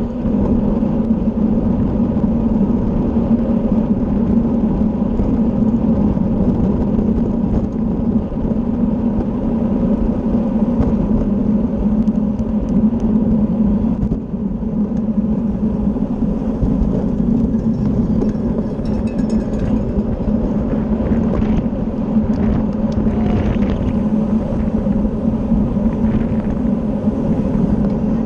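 Wind rushing over the microphone of a camera carried on a racing bicycle at speed, with tyre and road noise and a steady low hum.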